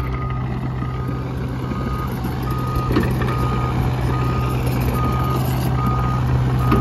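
Doosan DX85R-3 mini excavator travelling on its tracks, its travel alarm beeping evenly, a short high beep a little more than once a second, over the steady run of its Yanmar diesel engine.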